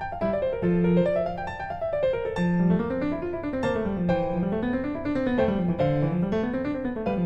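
Background piano music: a melody over rolling arpeggios in the bass that rise and fall in repeated waves.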